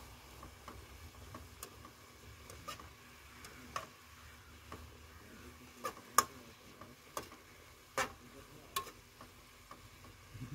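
Spatula clinking and scraping against a frying pan as food is stirred on a gas camping stove: a dozen or so irregular sharp clicks, the loudest just after the middle, over a faint sizzle.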